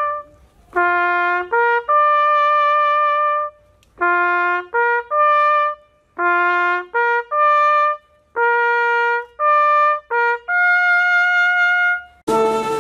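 Solo trumpet playing a melody of separate notes, held notes broken by short quick ones and brief pauses. Just at the end, a fuller brass band comes in.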